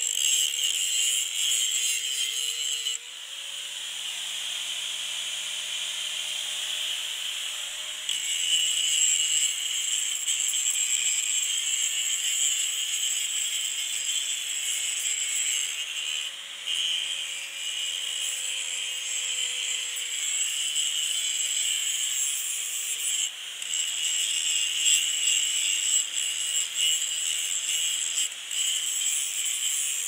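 Makita 4½-inch angle grinder with a general-purpose grinding disc, grinding heavy rust off the steel of a 1968 Case 580CK backhoe, a steady harsh hiss over the motor's whine. About three seconds in the grinding noise drops away for about five seconds while the motor whine rises slightly in pitch, then the grinding resumes.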